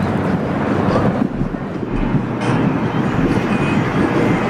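Outdoor city ambience: a steady, loud rumble of traffic.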